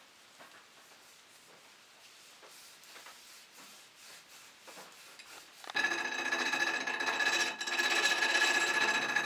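Faint repeated rubbing strokes as a dogwood chisel handle is smoothed by hand. About six seconds in, a hand-cranked bench grinder starts turning with a loud steady whine.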